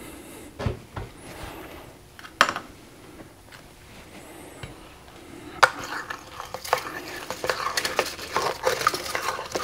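A few handling knocks from a plastic jug. Then, from about halfway, a dense crackling scrape as a metal spoon pushes icy slush of water and isopropyl alcohol out through the jug's mouth into a 3D-printed plastic mold.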